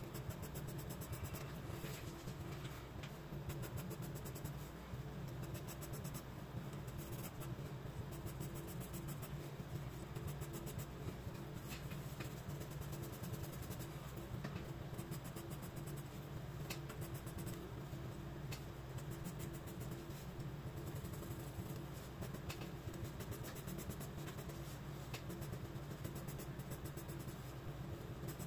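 Graphite pencil scratching on sketchbook paper in quick, repeated hatching strokes, with a low steady hum underneath.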